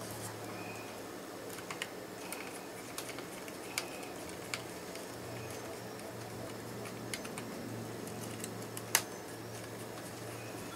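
Scattered light clicks and ticks of a screwdriver and small laptop parts being handled and screwed down during reassembly, with one sharper click about nine seconds in, over a steady low hum.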